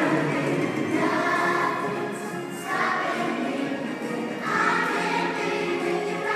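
Children's choir singing together, in phrases a second or two long.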